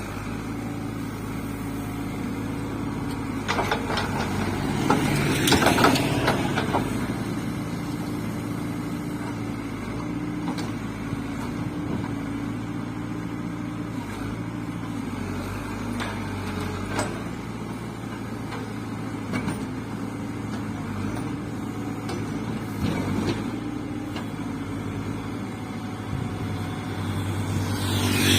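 Cat 424B2 backhoe loader's diesel engine running steadily while working, with a burst of scraping and clanking about four to six seconds in and a few single knocks later.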